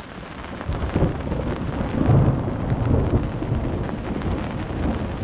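Thunder rolling over the steady hiss of heavy rain; the low rumble swells about a second in and is loudest around two seconds.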